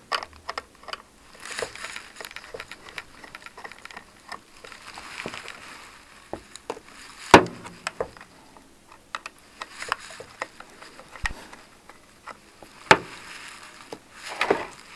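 Scattered clicks, taps and scraping from a screwdriver and hands working on the plastic housing of a Consul electronic water purifier while its cooling fan is being removed. There is a sharper knock about seven seconds in and another near the end.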